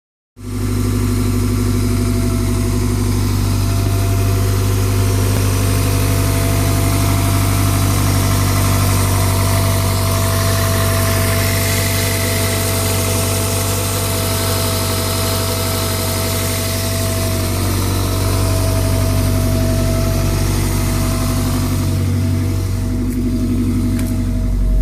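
Toyota 1ZZ-FE inline-four engine idling, with a steady whine riding over the idle from the accessory belt area, a noise whose cause the owner can't figure out.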